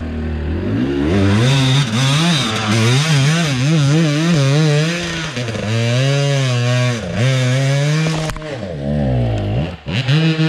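Enduro motorcycle engine revving under load as it climbs a steep slope. The pitch wavers up and down repeatedly as the rider works the throttle. About eight seconds in the note drops, dips low and picks up again near the end.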